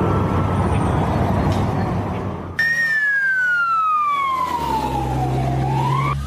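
A loud rushing noise, then an abrupt cut about two and a half seconds in to an emergency vehicle siren wailing. The siren's pitch falls slowly and rises again near the end, over a low steady engine hum.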